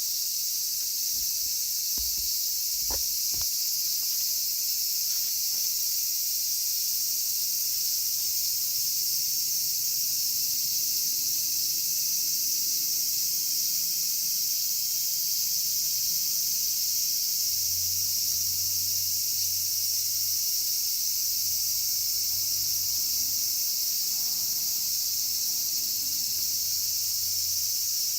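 Cicadas singing in a continuous, high-pitched chorus that holds steady throughout, with a few faint taps two to three seconds in.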